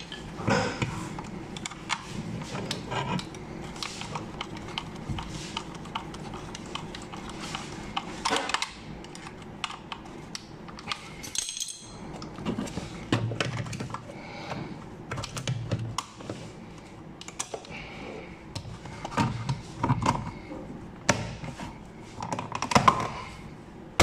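Hard plastic clicks, taps and rattles as a Toyota Yaris driver's power window switch panel is handled and pressed back into the door trim. A louder knock comes near the end as the panel is seated.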